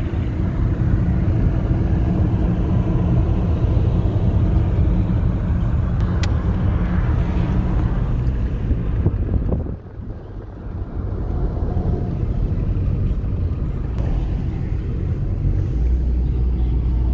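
Engine and road noise inside a Saab 9000's cabin at highway speed: a steady low drone that drops briefly about ten seconds in, then settles again.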